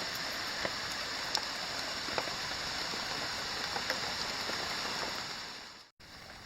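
Steady rain falling, heard through an open doorway, with scattered drops ticking close by. It fades away shortly before the end.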